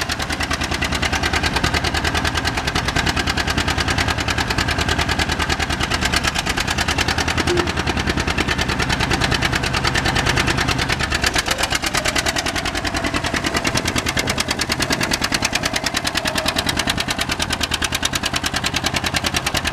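1957 John Deere 620LP tractor's two-cylinder LP-gas engine running while the tractor is driven, with a rapid, even beat of exhaust pulses.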